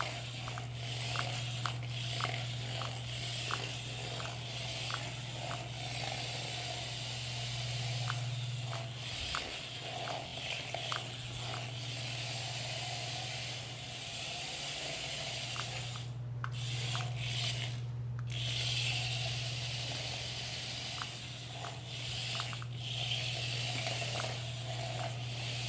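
A small electric motor humming steadily, with a light tick about twice a second; the hum drops out briefly twice.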